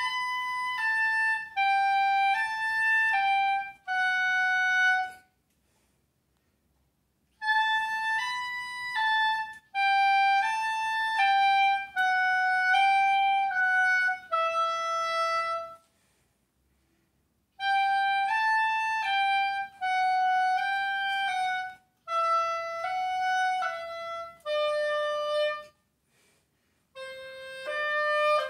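Solo oboe playing an étude exercise: phrases of held single notes moving by step and mostly falling, separated by three pauses of a second or two.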